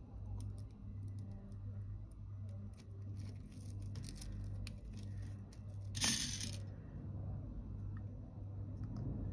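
Small round beads clicking and rustling faintly as crystal beading thread is worked through them, with a brief louder hiss about six seconds in, over a steady low hum.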